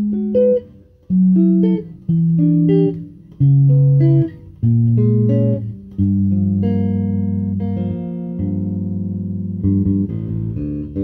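TUNE SWV-6 six-string electric bass with a monkey pod top and 33-inch scale, played fingerstyle. It opens with a phrase of separate plucked notes, then from about six seconds in several longer notes ring together like held chords.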